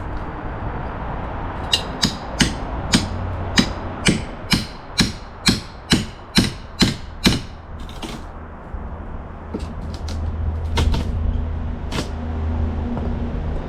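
A hammer striking in a steady run of about a dozen blows, roughly two a second, then a few scattered knocks.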